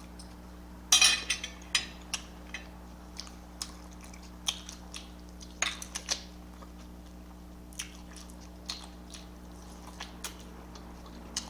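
Close-miked chewing of a person eating, with wet smacks and clicks of the mouth, loudest about a second in and again around the middle. A steady low electrical hum runs underneath.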